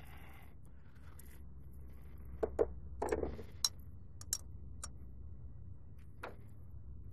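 Irregular sharp clicks and knocks of golf balls and a golf club at a driving range bay, about eight in all and bunched a little past the middle, with one more near the end, over a steady low rumble.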